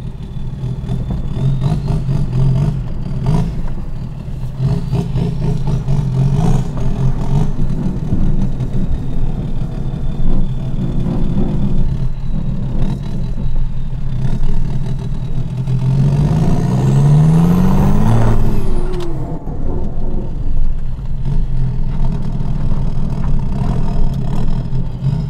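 BMW E39 530d's straight-six diesel engine running as the car is driven slowly. Its pitch rises about sixteen seconds in and eases off again a few seconds later.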